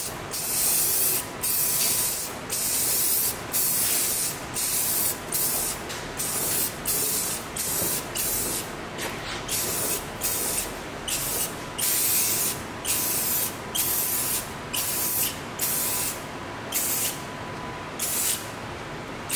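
Aerosol spray paint can (Rust-Oleum) spraying in a long series of short hissing bursts, about one a second with brief gaps between, as the last coat of black paint goes on.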